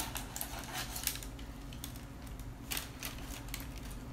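A slotted plastic spatula prodding whole roasted fish in a roasting pan, making a few sharp clicks, with parchment paper rustling under the hand: the fish being tested for doneness.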